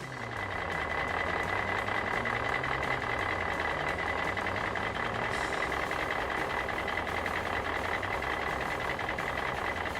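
Toy steamroller running steadily: a continuous motor hum with a constant high whine, as it rolls to smooth the road.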